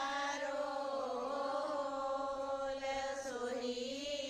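Quiet devotional chanting in long, drawn-out held notes that slide slowly in pitch.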